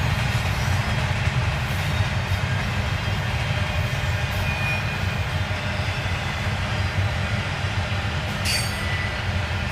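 Double-stack container train's well cars rolling past: a steady rumble of steel wheels on the rails, with faint wheel squeals and a brief sharper squeal about 8.5 seconds in.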